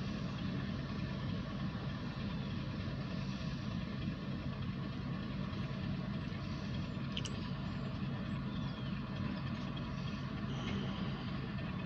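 Diesel locomotive engines idling with a steady, even low hum.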